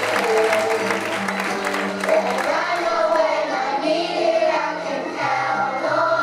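Children singing a song together as a choir, with an instrumental accompaniment carrying a steady bass line.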